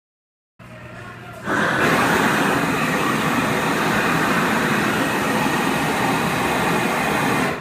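Propane gas torch burning with a steady loud hiss, its flame heating bronze for a hot patina. It starts quieter and comes up to full strength about a second and a half in.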